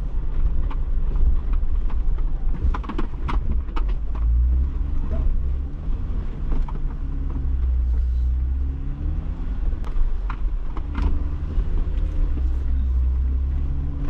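Stock Jeep Wrangler Rubicon driving slowly over an uneven off-road trail, heard from inside the cabin: a low engine drone whose pitch rises and falls with the throttle, with scattered sharp knocks and rattles as the vehicle jolts over rock.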